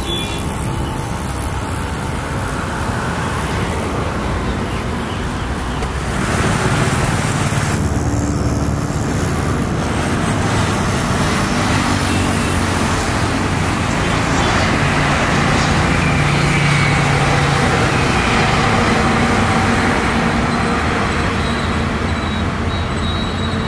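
Airbus A330 airliner's jet engines on landing approach: a steady roar that grows louder about halfway through and then eases slightly. Road traffic noise runs beneath it.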